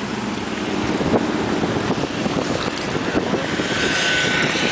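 Road and wind noise of a moving car heard from inside the cabin, a steady rushing with irregular buffeting.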